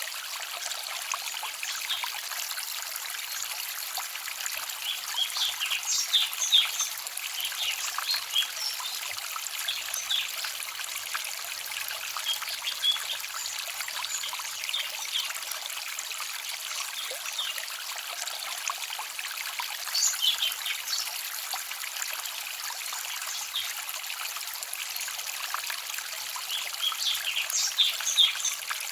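Small forest stream babbling and trickling steadily, with short high chirps of small songbirds over it, coming in clusters a few times.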